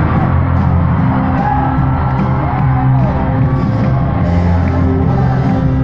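Live band music played loud through an arena sound system, heard from the audience, with held low notes and a few whoops from the crowd.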